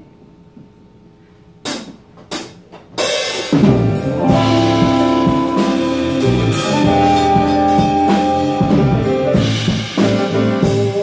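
A live band of keyboard, electric guitar, bass guitar and drum kit starts a song. Three sharp clicks, about two seconds in, count it off, and the full band comes in about a second later and plays on.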